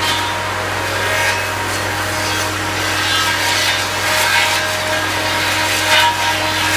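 Forax groomer-mounted brush cutter running over a steady machine drone, its cutter chewing through brush and wood in repeated rasps, the sharpest one about six seconds in.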